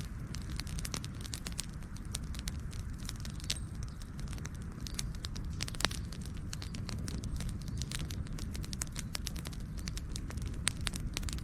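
Campfire burning: a steady low rumble of the flames with frequent irregular crackles and pops of burning wood, one pop a little before the middle sharper than the rest.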